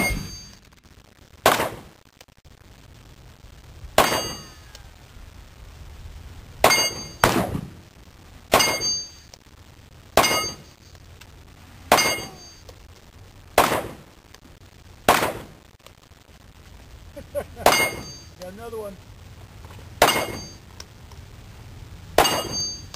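A handgun fired about a dozen single shots at a slow, deliberate pace, roughly one every couple of seconds, with a quick double shot near the middle.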